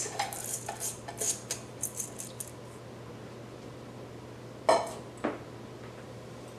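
Dry long grain white rice pouring into the pressure cooker's pot, a quick run of rattling patters over the first couple of seconds, then two sharp clinks about half a second apart a little before five seconds in.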